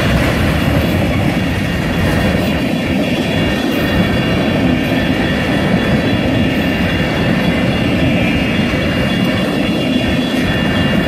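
Freight train of covered hopper and tank cars rolling past at a grade crossing: a steady, loud rumble of steel wheels on rail, with thin steady high-pitched tones above it.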